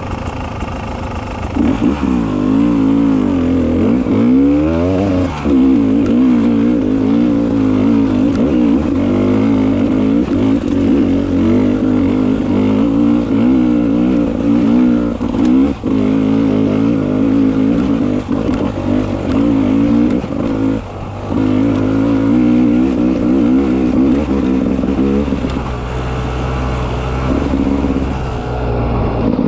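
Beta 300 RR two-stroke enduro motorcycle engine under constant throttle changes, its pitch rising and falling as it revs up and down. It is quieter for the first second or so, then loud, with a sharp rev about four seconds in and a brief dip around twenty-one seconds.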